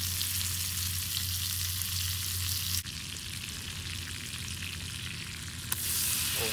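Needlefish fillets frying in butter in a frying pan, a steady sizzle. Near the end the sizzle grows louder as a fresh fillet goes into the foaming butter.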